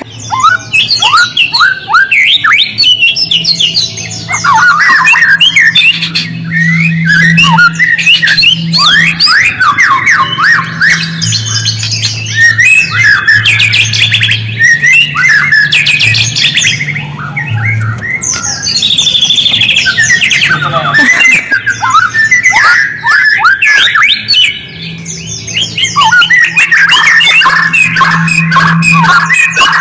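White-rumped shama (murai batu) singing loud, rapid chattering phrases of quick sweeping notes, broken by a few brief pauses, over a low steady electrical hum.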